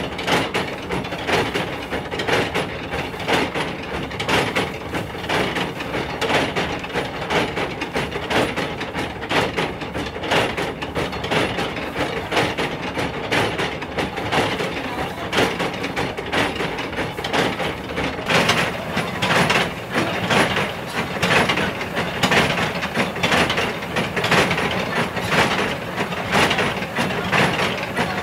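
Motor-driven stamp mill's pestles pounding red chili pepper in mortar pits, a fast, continuous, rhythmic clattering thud that sounds like a train running.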